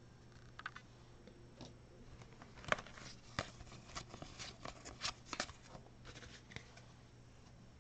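Basketball trading cards handled and sorted by hand: faint, scattered clicks and flicks of card stock for a few seconds, over a low steady hum.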